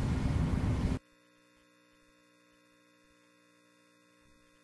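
A loud rushing noise cuts off abruptly about a second in, leaving a faint, steady electrical mains hum made of several steady tones.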